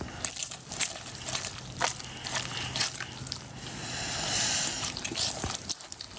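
Wet homemade slime mixture squelching and sloshing as it is handled: a run of small irregular wet clicks, with a steadier hiss about two thirds of the way through.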